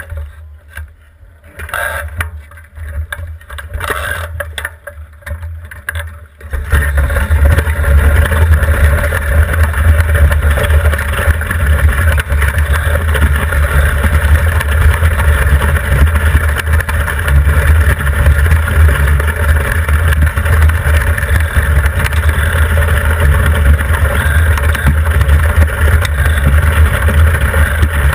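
Ice boat sailing on lake ice, heard from its bow: wind buffeting the microphone and the runners rumbling and hissing over the ice. It comes in uneven gusts at first, then about six seconds in turns suddenly loud and steady as the boat moves at speed.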